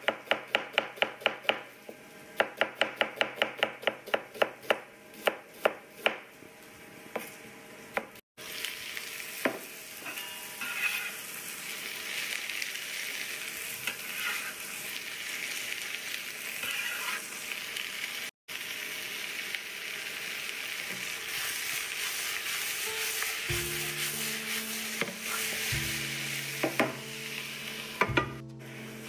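A knife chopping onion on a cutting board in quick strokes, several a second, for the first few seconds. Then sliced onions sizzle steadily in hot olive oil in a frying pan. Low musical notes come in near the end.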